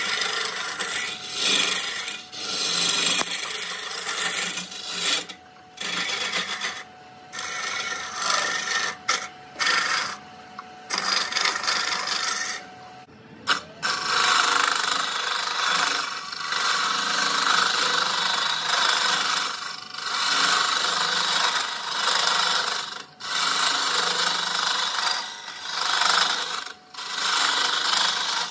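Hollowing tool cutting inside a spinning oak burl on a wood lathe: a scraping, shaving noise that comes and goes with short pauses as the tool is pushed into the wood and eased off.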